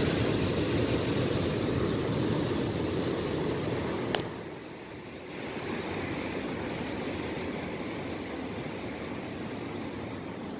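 Surf breaking and washing up a beach: a steady rushing of waves. A brief click about four seconds in, after which the rushing is a little quieter.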